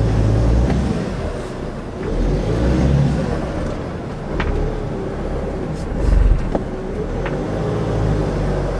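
Bürstner Campeo 4x4 camper van (Citroën base) pulling away across wet grass on front-wheel drive, its engine note rising and falling with the revs over a steady low rumble.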